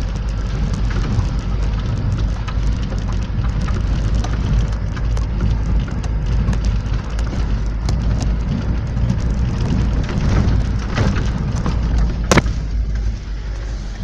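Safari vehicle jolting along a rough, rocky dirt road: a steady low rumble from inside the cabin, full of rattles and small knocks, with one sharp knock near the end.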